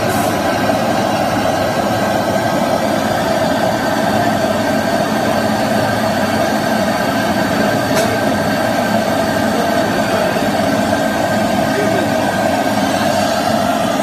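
Steady roar of a commercial kitchen's gas burner flame and ventilation running under a pan of beyran, with one brief click about halfway through.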